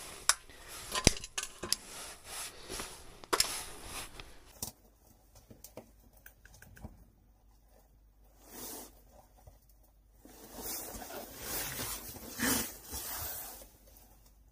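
Thin plastic crinkling and clicking as a solid alcohol fuel block is handled out of its wrapper into a stainless steel basin, followed by a few quieter spells of soft rustling.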